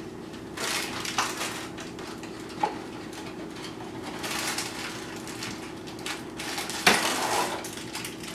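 Paper sleeve of Ritz crackers rustling and crinkling in several short bursts as it is handled, with a few light clicks and knocks on the counter.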